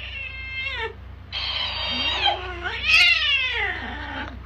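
Domestic cat giving two drawn-out meows: a short one ending about a second in, then a longer, louder yowl whose pitch slides steeply down near the end.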